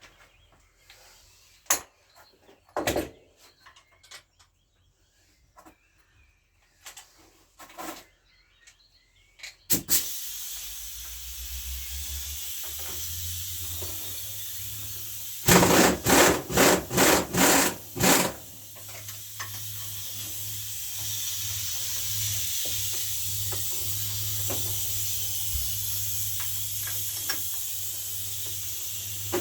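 Scattered clicks and knocks of hand tools on metal during engine disassembly. About ten seconds in, a motor-driven machine starts and runs steadily with a low hum and a hiss, broken around the middle by a quick string of about six loud pulses.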